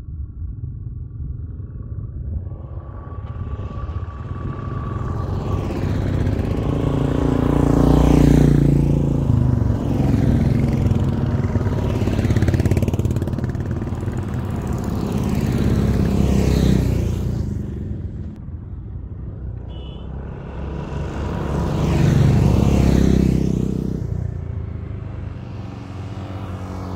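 A string of motorcycles riding past one after another, among them a Royal Enfield single and a Yamaha R15. Each engine grows louder as it nears, then fades as it goes by. Several pass in turn, and the loudest come about eight seconds in and again about twenty-two seconds in.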